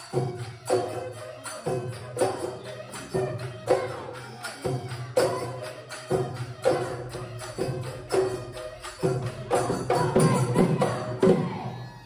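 Background music with a steady percussion beat of about two strikes a second over sustained melody; it cuts off suddenly at the end.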